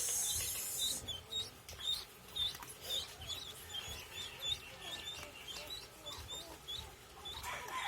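A brood of ducklings peeping: short, high, hooked chirps repeated about three times a second, overlapping from several birds. A brief hiss sounds in the first second.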